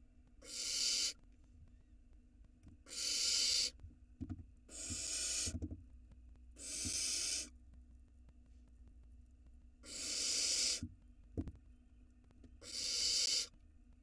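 Barn owl nestlings giving hissing, rasping begging calls (the 'snoring' food call of young barn owls), six separate hisses each under a second long, a couple of seconds apart. A few dull knocks from the nest box come between them.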